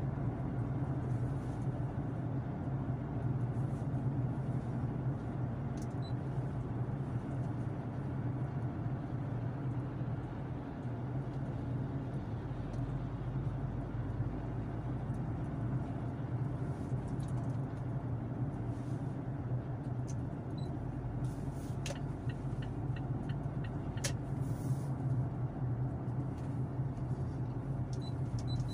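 Steady road and engine noise of a moving car heard from inside the cabin: a constant low hum with tyre rumble. A few faint clicks come about two-thirds of the way through.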